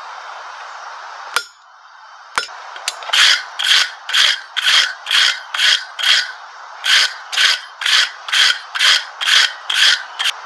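Block wire brush scrubbing a forged steel hook on the anvil face, about fifteen back-and-forth strokes at roughly two a second with a short pause midway, brushing off forge scale. A few sharp knocks come before the brushing starts.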